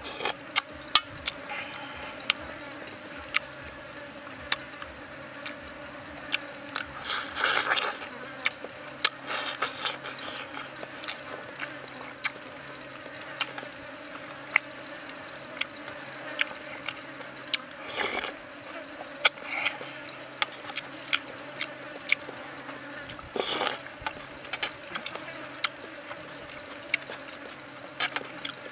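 Eating sounds close to the microphone: many short, wet clicks of chewing and lip-smacking, and a few longer slurping noises. Under them runs a steady buzz of insects.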